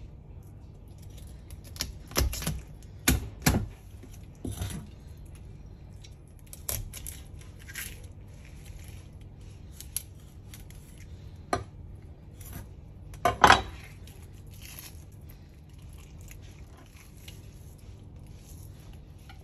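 Chef's knife cutting through a whole grey mullet on a plastic cutting board: scattered short crunches, scrapes and knocks, loudest about two to four seconds in and again about thirteen seconds in, over a low steady hum.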